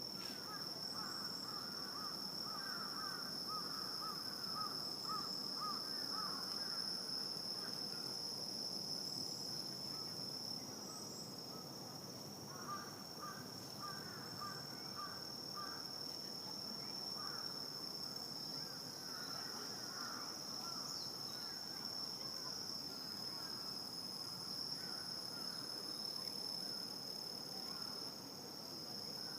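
Night insects chorusing: a steady high-pitched trill that never lets up, with runs of quick repeated lower-pitched calls from another animal coming and going several times.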